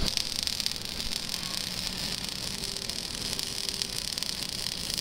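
MIG welding arc running steadily, giving a high, fizzing crackle.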